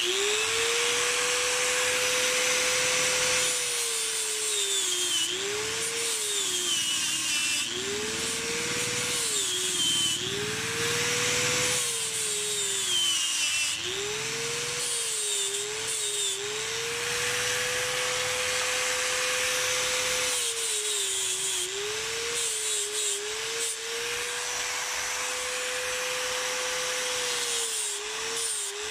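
Electric angle grinder with a flap disc, switched on at the start, grinding water buffalo horn. Its motor whine holds a steady pitch when the disc runs free and sags each time the disc is pressed into the horn, over and over, under a gritty grinding hiss.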